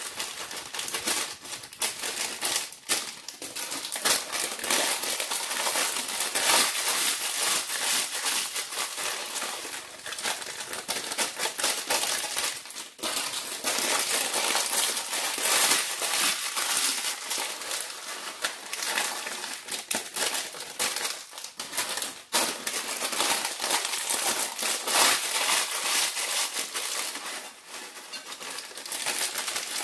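A small snack bag of crushed mini Doritos crinkling and rustling as the crushed chips are shaken and poured out of it onto the casserole, a steady crackly rustle full of small crackles.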